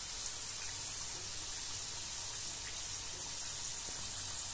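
Hot oil sizzling steadily as two stuffed coconut pithas deep-fry in a kadai, the first side still cooking. An even, high hiss.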